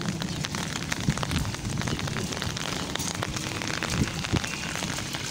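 Rain pattering on a wet concrete lane and grass, heard as a steady crackle of many small drops.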